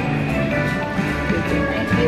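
Background music: an upbeat track with a steady beat, strummed guitar and bass.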